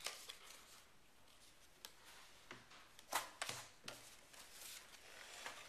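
Cardboard football trading cards being handled: faint slides and flicks of cards against each other, a handful of short scrapes and clicks, the loudest a little after three seconds in.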